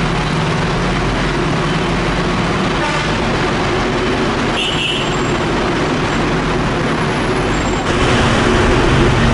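Heavy vehicle engines running steadily under a loud noisy rush, with a brief high beep about halfway through; the sound changes abruptly near the end.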